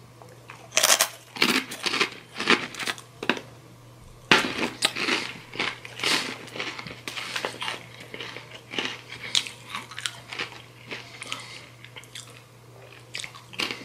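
A person biting and chewing Takis, rolled corn tortilla chips: a run of loud, irregular crunches starting about a second in, giving way after about six seconds to lighter chewing crunches.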